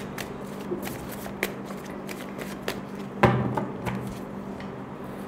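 A deck of tarot cards being shuffled by hand: a run of soft card flicks and taps, with one louder tap a little past halfway.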